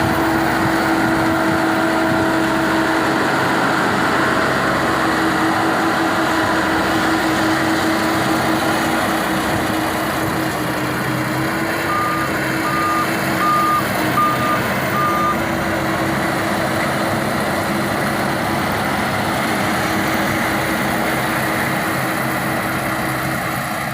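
Changfa CF608 combine harvester running steadily with a continuous engine and machinery drone. About halfway through, five short even beeps sound, like a reversing alarm.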